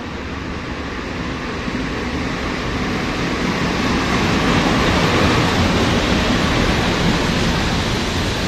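PKP class EP07 electric locomotive hauling an Intercity passenger train along a station platform: a steady rumble and rush of wheels on rails that swells as the locomotive passes, about halfway through, then eases slightly as the carriages roll by.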